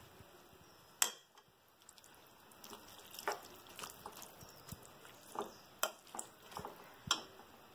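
Metal spoon scraping and clinking against a metal pan while stirring a thick curry paste into vegetables. A sharp clink comes about a second in, then a run of lighter taps and scrapes from about halfway on.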